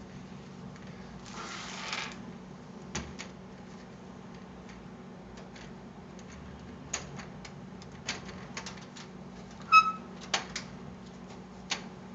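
Scattered clicks and knocks of a computer case's side panel being handled and fitted back on, with a brief scraping rustle about two seconds in and a short ringing clink near the ten-second mark.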